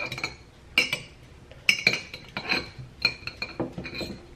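Metal fork clinking against the inside of a glass jar while pepperoncini peppers are fished out: a series of sharp, irregular clinks, each with a short glassy ring.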